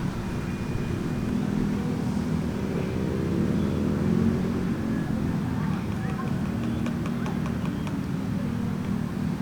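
A motor vehicle's engine running with a steady low hum, its pitch rising briefly about three to four seconds in, over a low rumble.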